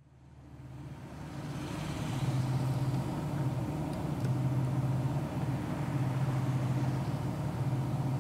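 Steady car-cabin noise, a low engine hum with road noise, fading in over the first two seconds.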